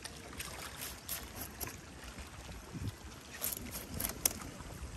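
Low wind rumble on the microphone, with a few faint short ticks and scrapes, clearest in the second half, from a long fillet knife cutting a giant grouper fillet close to the bone.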